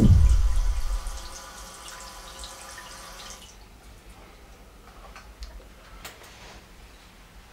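A deep, falling cinematic boom as the title comes up, over a running bathroom tap. The tap stops about three and a half seconds in, leaving a few faint drips.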